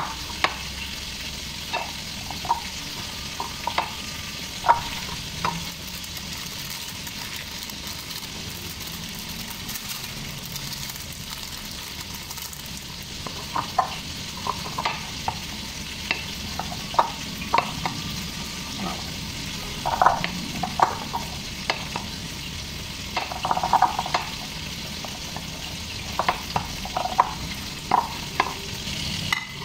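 Wooden spatula stirring and tossing sticky sauced black bean noodles in a glass mixing bowl: a steady wet squelching hiss, broken by irregular sharp clinks of the wood against the glass.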